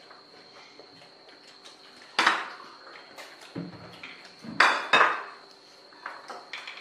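Plates and cutlery clinking and scraping at a shared meal: small clicks, with a few sharper knocks of dishes, one about two seconds in and two in quick succession later.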